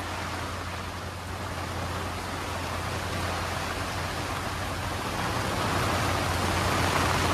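Heavy rain pouring down onto a sailboat's cockpit and canvas bimini as a steady hiss, growing heavier a few seconds in. A steady low hum runs underneath.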